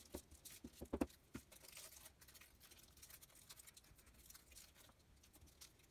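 Faint crinkling and ticking of shiny sweet wrappers being handled and pressed onto a cardboard fish, with a few louder ticks in the first second and a half.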